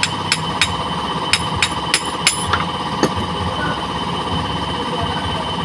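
Claw hammer tapping metal on a Piaggio starter one-way clutch assembly, fitting its clutch spring. There are about seven quick sharp taps in the first two and a half seconds, then one more about three seconds in.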